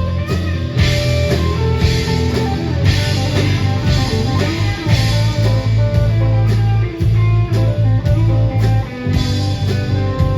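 Live rock band playing an instrumental passage: electric guitar over bass and a steady drum-kit beat.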